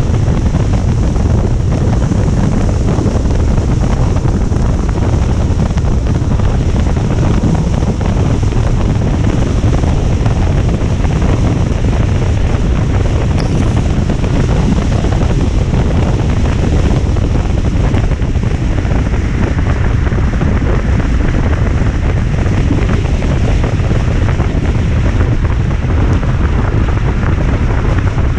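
Steady, loud rushing of rain and wind, with a heavy low rumble of wind on the microphone.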